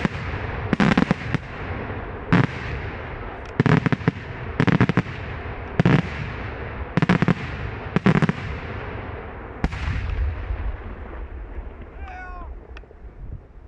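Daytime aerial firework shells bursting overhead: about a dozen sharp, loud bangs, some in quick clusters, with a low rumbling echo between them. The bangs stop after about ten seconds and the rumble dies away.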